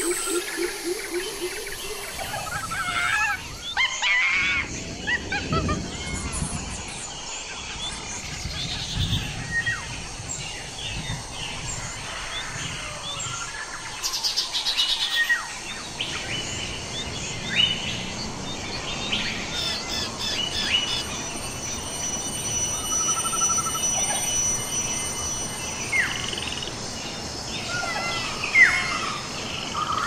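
Forest ambience of many wild birds chirping, whistling and calling, one over another, over a steady background hiss. In the first couple of seconds a low, rapidly pulsed call sounds beneath them.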